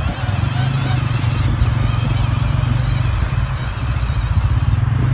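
Kids' quad bike running steadily, a low pulsing rumble.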